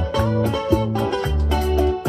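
Instrumental backing music of a Latin song, with a bass line and a steady beat and no singing.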